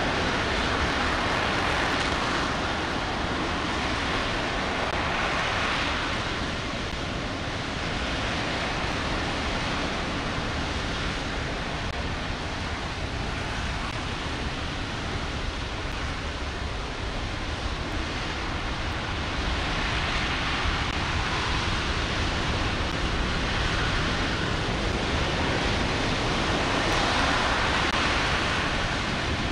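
RS-25 liquid-hydrogen rocket engine running in a static hot-fire test: a steady, dense rushing noise with a deep rumble underneath, easing slightly in the middle and swelling again near the end.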